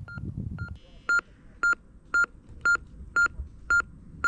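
Medical patient monitor beeping with each pulse, short beeps at one steady pitch about two a second, tracking a fast heart rate of roughly 110 to 115 a minute. The beeps are faint for the first second, then much louder.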